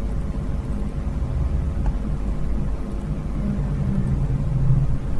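Steady low rumble with a faint constant hum underneath, an unvoiced background noise bed with no speech.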